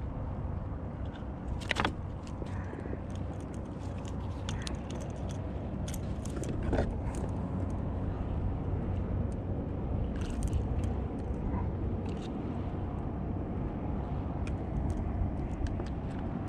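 Wind buffeting the microphone as a steady low rumble over open water, with a few light clicks and knocks, the sharpest about two seconds in.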